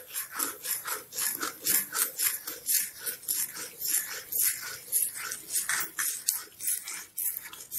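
Metal spoon scraping round a pan in quick repeated strokes, about three a second, stirring semolina into boiling spiced water as it thickens.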